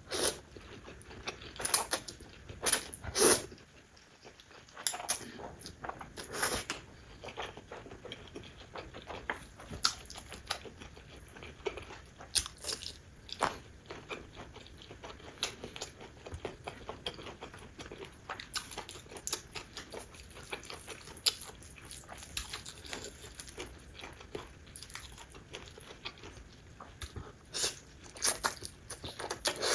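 Close-miked eating: irregular bites and chewing with crunchy clicks, the loudest bites in the first few seconds and again near the end.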